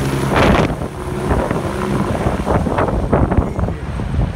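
Agusta A109 K2 twin-turbine helicopter flying away overhead after takeoff. Its steady engine tone fades out about a second in, leaving a rough rotor rumble mixed with wind buffeting the microphone.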